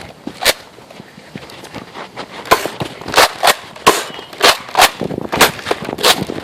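Nerf blasters being fired: a single sharp pop, then a quick run of about eight pops and thwacks.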